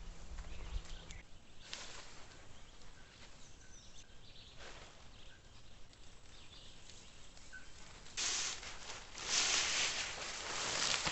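Faint outdoor ambience with a few faint bird calls, then loud bursts of hiss from about eight seconds in that start and stop abruptly.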